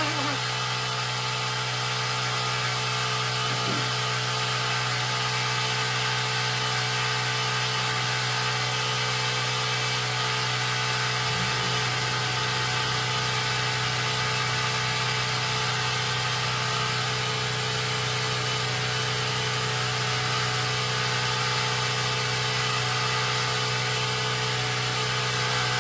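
A motor-driven machine running steadily, a constant hum that barely changes throughout.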